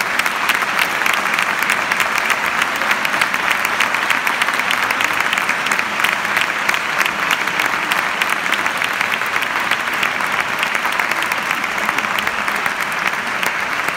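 A theatre audience applauding, many hands clapping in a dense, steady wash that thins a little near the end.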